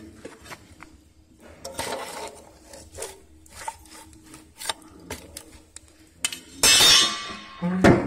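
Metal clinks and scrapes of a steel rod against a tin can and the stove's metal fittings, as the can of tyre-balancing weights melting in the wood-stove fire is poked and stirred. Short scattered knocks, then two louder grating scrapes near the end.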